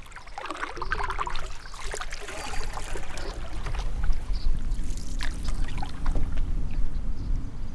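Canoe paddle strokes: the blade dipping and pulling through lake water, with trickling and dripping and a few light clicks. A steady low rumble runs underneath.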